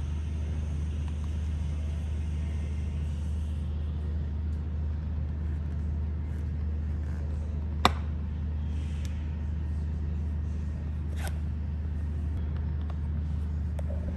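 Steady low rumble in the background, with two sharp clicks, one about halfway through and another a few seconds later, as plastic brackets are snapped onto the underside of a bonnet protector.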